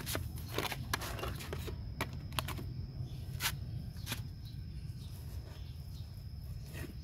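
Rustling and brushing of handling noise, a cluster of short scrapes and clicks in the first four seconds, then quieter. Under it runs a steady high insect trill and a low rumble.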